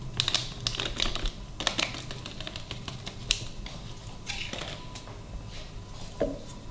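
Scattered light clicks and taps from handling over a stainless steel mixing bowl as cocoa powder is added to whipped cream, with the bowl taken hold of near the end.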